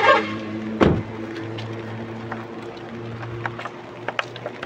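Car engine idling with a steady low hum, which stops near the end. A single sharp knock comes about a second in, and light ticks of rain fall throughout.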